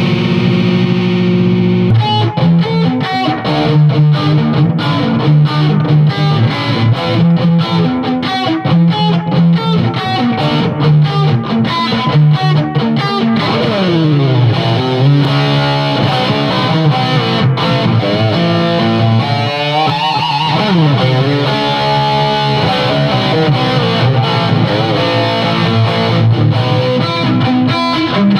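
Distorted electric guitar played through a Crate Vintage 60 amp rebuilt as a high-gain Splawn/Soldano-style amp: heavy riffing with repeated low chugs and a couple of sliding notes midway.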